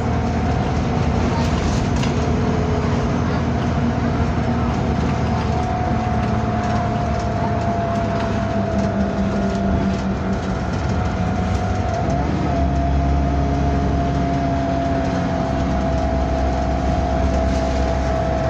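Bus running on the road, heard from on board. A steady whine slowly falls in pitch over the engine. About twelve seconds in, the engine note changes and becomes lower and heavier.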